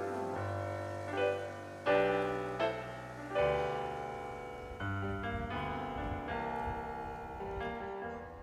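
Slow piano music, with a new chord or note every second or so.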